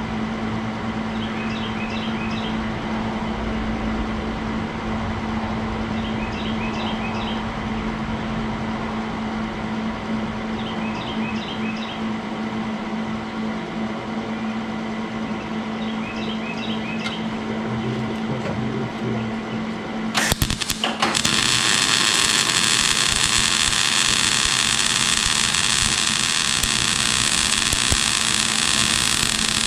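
A steady hum, then about twenty seconds in a Millermatic 130 MIG welder's arc strikes briefly, catches again and burns steadily for about nine seconds before cutting off near the end. It is a test weld after the welder's melted contactor was replaced.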